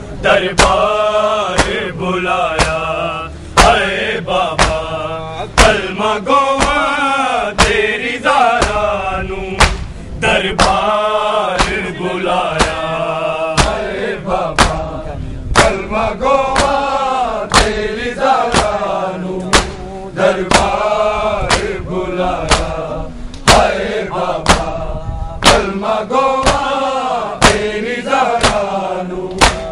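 Noha chanted by a group of men in Urdu, with the mourners' open-hand chest-beating (matam) slaps landing together in time with it, about once a second.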